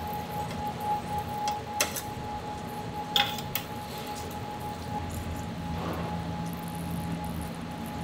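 A wire strainer clinking against a stainless steel tray as steaming netted chashu pork rolls are lifted in and set down: a few sharp metal clinks, the loudest about three seconds in, over a steady kitchen hum.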